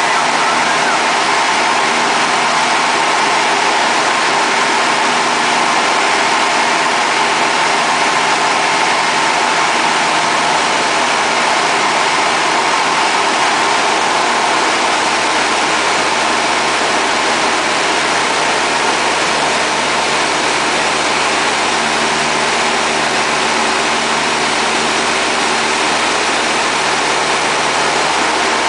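Light aircraft's piston engine and propeller droning steadily, heard from inside the cabin together with the rush of air over the airframe.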